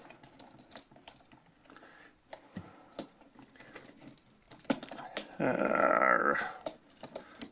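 Small metallic clicks and taps of hand tools and wire being worked at an electrical outlet as a ground wire is taken off, with a louder rasping sound lasting about a second, about five and a half seconds in.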